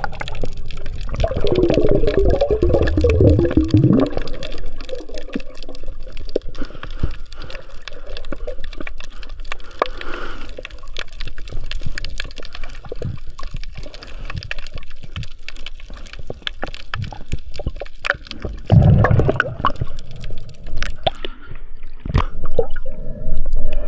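Underwater sound through a submerged camera: a steady crackle of fine clicks, with louder bubbling gurgles near the start and again about 19 seconds in.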